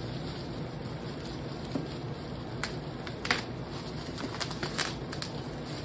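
Bubble wrap being handled and pulled off a bike frame: a string of short crinkles and rustles starting about two seconds in, the sharpest about halfway through.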